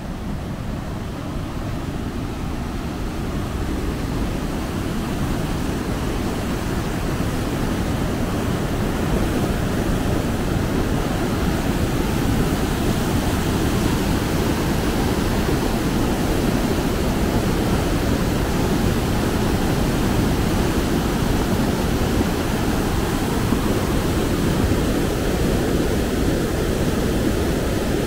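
River water rushing over a low waterfall, a steady rushing noise that grows louder over the first ten seconds or so and then holds even.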